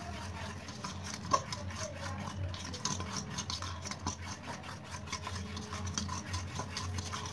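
A spoon stirring and scraping thick cake batter in a stainless steel bowl: a quick, uneven run of soft scrapes against the metal, with a sharper clink about a second and a half in.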